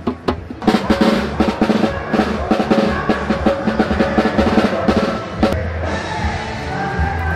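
Brazilian samba percussion ensemble drumming; after a brief pause, a dense, fast drum groove starts just under a second in.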